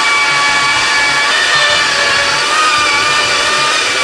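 Countertop personal blender motor running loudly and steadily at full speed, a whine with an even rush of noise, as it blends whole vegetables.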